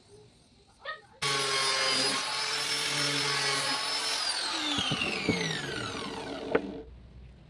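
Electric angle grinder with a sanding disc starting abruptly about a second in and running at a steady high whine while sanding a piece of wood, then switched off and winding down in falling pitch until it stops. A sharp knock comes near the end.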